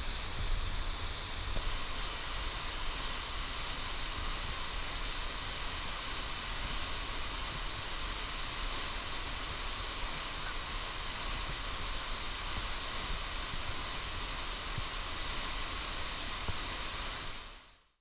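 Steady rushing of a tall waterfall's falling water, an even hiss with a low rumble underneath, fading out near the end.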